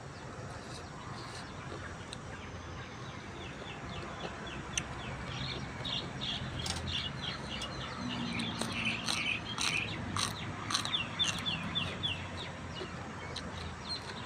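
A bird chirping in a quick series of short falling notes, building up about a third of the way in and fading near the end, with scattered sharp crunchy clicks of someone chewing crisp raw vegetables.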